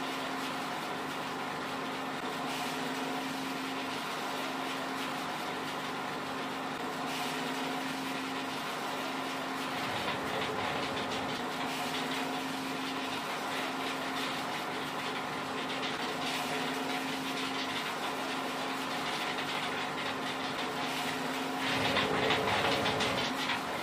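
Small feed pellet mill running steadily, its motor humming with a constant tone over a rattling hiss. Near the end it grows louder and rougher as feed mix is poured into the hopper.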